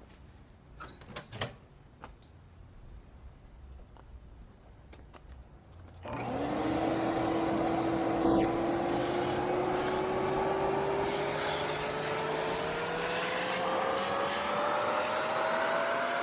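A few faint clicks and knocks, then about six seconds in a Shop-Vac wet/dry vacuum switches on and runs, its motor whine climbing steadily in pitch.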